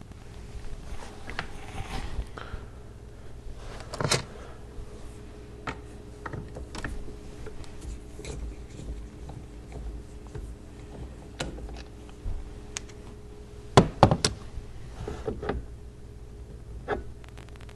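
Scattered clicks, taps and knocks of hard parts being handled as a steering-wheel quick-release hub and its horn button assembly are taken apart, with a few sharp knocks close together late on, over a low steady hum.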